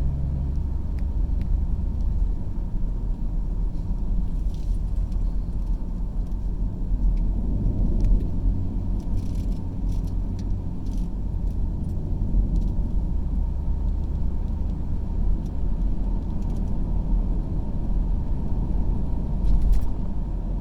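A car driving along a road: a steady low rumble of engine and tyres, with a few brief light rattles and clicks now and then.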